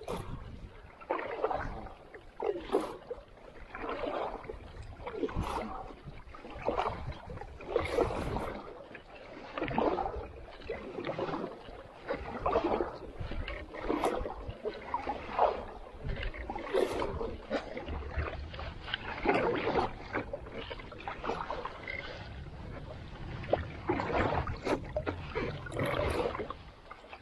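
Paddle strokes pulling a solo pack canoe through lake water: a swish and splash of the blade about every second and a half, in a steady rhythm.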